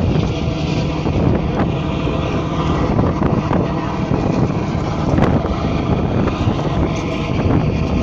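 A passenger boat's engine running with a steady drone, heard from the open deck with wind buffeting the microphone.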